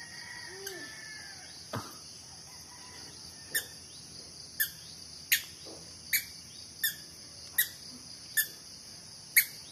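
Steady drone of crickets and other insects, with a run of sharp chirps or clicks about every second from midway on, getting louder near the end.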